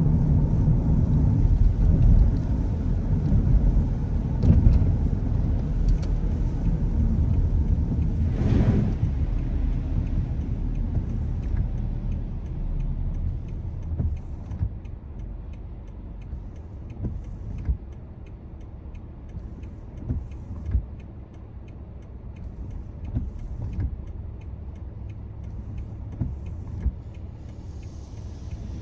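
Car road and tyre noise on a rain-wet road: a low rumble that fades over the first half, with a brief hiss about eight seconds in, then quieter running with occasional light taps.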